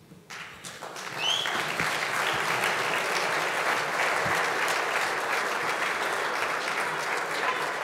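Audience applauding at the end of a speech, the clapping swelling up within the first second and then holding steady.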